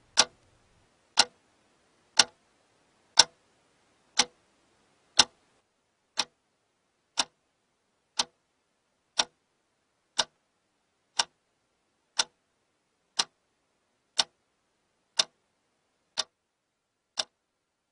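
A clock ticking steadily, one sharp tick a second, with near silence between the ticks.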